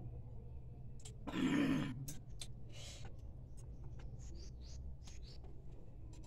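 A breathy sigh about a second in, the loudest sound, followed by scattered light clicks and clinks of utensils and dishes on a plate and bowl, over a steady low hum.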